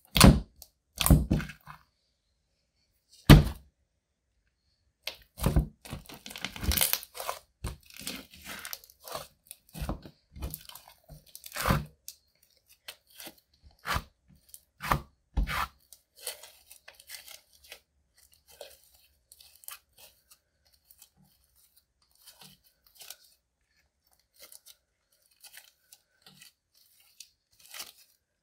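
Hands squeezing, kneading and stretching a clear slime mixed with bronze eyeshadow: a run of sharp sticky pops and crackles, loud and dense for about the first half, then fainter and sparser.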